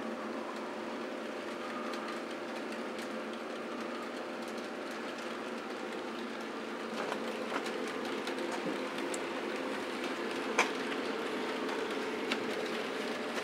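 HO-scale model trains running on the layout: a steady electric-motor hum with light clicking of wheels over the track, and a few sharper clicks in the second half.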